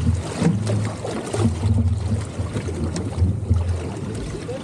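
Ambience aboard a fishing boat drifting offshore: wind buffeting the microphone in uneven low gusts over a steady hiss of wind and sea.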